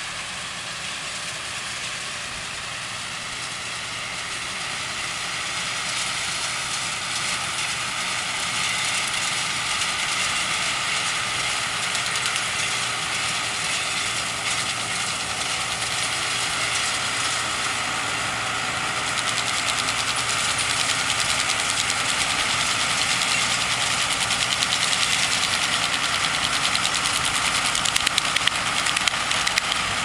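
Tractor engine running steadily while driving a round baler through straw, getting louder as the rig comes closer, with a few sharp clatters near the end.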